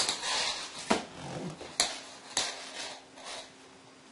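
Knitting needles clicking and knocking on a wooden floor, with the rustle of knitted wool being shifted as two sweater pieces are laid together. A few sharp clicks, the loudest right at the start.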